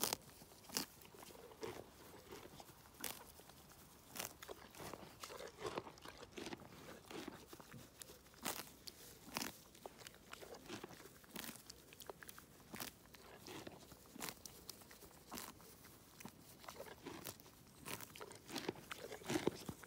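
A pony grazing at close range, tearing off mouthfuls of grass in sharp crunches at an irregular pace, about one or two a second, and chewing between them.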